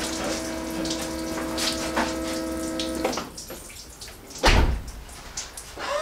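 Land Rover Td5's electric fuel pump priming with a steady whine while diesel sprays and splashes from a loose fuel line. The whine stops suddenly about three seconds in, followed by light clattering and one heavy thump.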